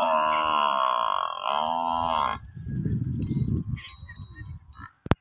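Water buffalo cow calling: one long, loud bellow lasting about two and a half seconds, followed by a lower, rough grunting sound. A single sharp click comes just before the end.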